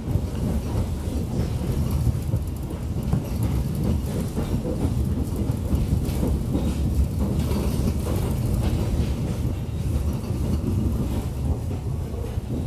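Steady low rumble of a moving passenger train heard from inside the coach: wheels on the rails and the carriage's running noise.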